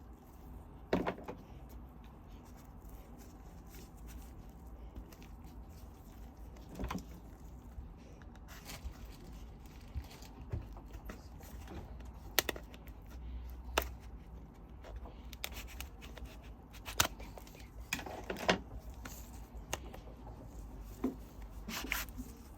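Laptop box and packaging being handled: scattered sharp taps and clicks, with a few duller knocks, around a second in, about seven seconds in and near eighteen seconds.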